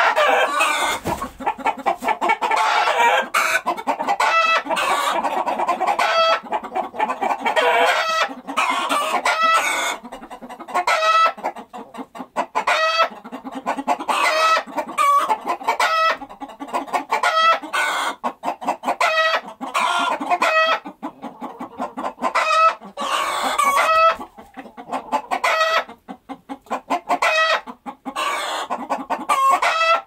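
A flock of chickens clucking, with many short calls overlapping one another and hardly a break.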